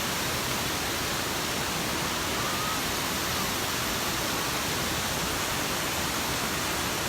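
Waterfall rushing in a steady, even roar of falling water.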